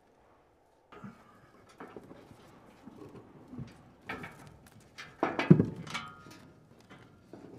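Irregular scuffing, scraping and knocking of people clambering over rough ground in the dark, with a heavy thud about five and a half seconds in. It starts after a second of near silence.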